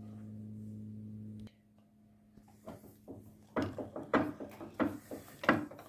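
A steady low electrical hum that cuts off abruptly about one and a half seconds in, followed by a run of irregular clicks and knocks as small metal parts and tools are handled on a workbench.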